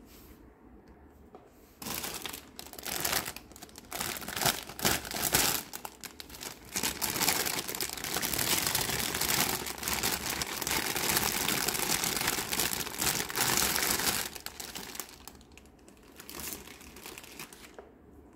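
Clear plastic wrapping crinkling and tearing as it is pulled off a plastic toy shopping cart. It starts about two seconds in, is loudest and most continuous in the middle, and dies down to a few brief rustles near the end.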